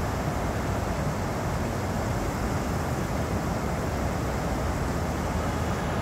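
Stream water rushing over a low concrete weir in a steady, even rush.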